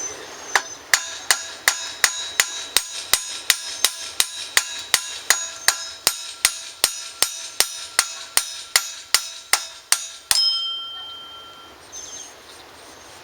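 A hammer beating on metal in a steady rhythm, about three blows a second for some ten seconds, each blow ringing. The series ends with one louder blow that rings on briefly.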